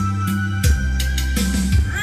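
Karaoke backing track playing through professional PA speakers: bass and drums with a steady beat, in an instrumental stretch between sung lines.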